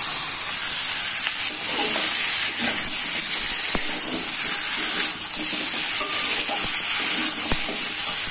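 Cubed potatoes sizzling in hot oil and spice paste in a kadai, a steady high hiss, with a metal spatula scraping and stirring them now and then.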